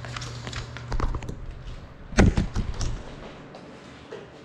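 Handling knocks and a loud thud about two seconds in as a small FPV quadcopter is picked up and set back down on a hard table top, its motors off.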